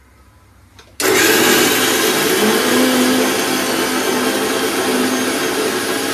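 Electric kitchen mixer grinder switched on about a second in, its motor and blades then running steadily at full speed with a loud whirring hum.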